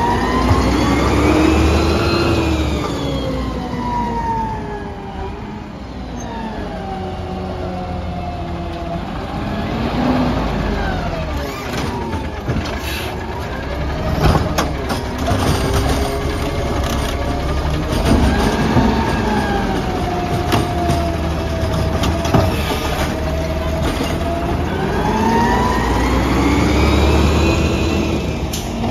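Natural-gas engine of a Peterbilt 320 with a McNeilus ZR automated side-loader body. It revs up and down repeatedly as it drives the hydraulic arm to grab, lift and dump a cart. Knocks and bangs from the cart and arm come about halfway through, and the engine revs up again near the end as the truck pulls away.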